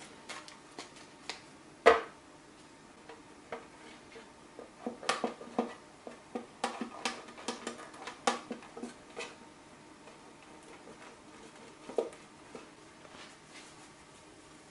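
A metal loaf pan handled on a wooden cutting board while it is greased and coated with semolina: scattered knocks and taps of the pan, the sharpest about two seconds in, a busy run of small knocks from about five to nine seconds, and one more near the end.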